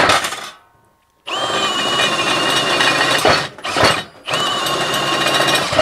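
Cordless drill with a step bit boring through a thick steel plate, the motor whining under load. It runs in bursts: it stops about half a second in, starts again about a second later, pauses briefly twice in the middle, then runs on.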